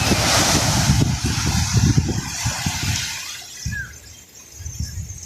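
Sea wave breaking and washing up the shore: a loud hiss that fades away after about three seconds. Wind buffets the microphone in low gusts throughout.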